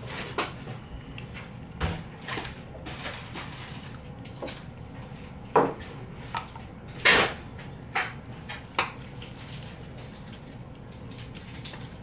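Disposable chopsticks clicking and tapping against a foam takeaway box of sushi as pieces are picked up, with about half a dozen sharper knocks scattered through, the loudest a little past the middle.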